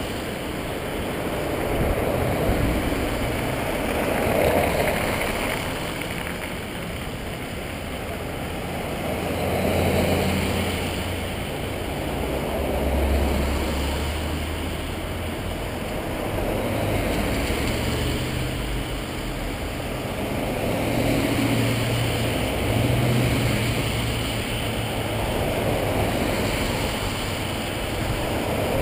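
A line of police vehicles in a procession driving past one after another. Their tyre and engine noise swells and fades every few seconds, with no sirens.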